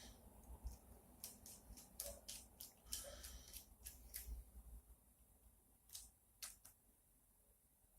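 Faint, scattered clicks and light taps of small screws, nuts and acrylic frame plates being handled during assembly, mostly in the first half, with a couple more about six seconds in.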